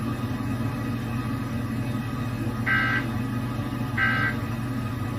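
Emergency Alert System end-of-message data tones: after a stretch of steady low hum, two short bursts of shrill digital data tone about a second and a half apart, marking the end of the warning.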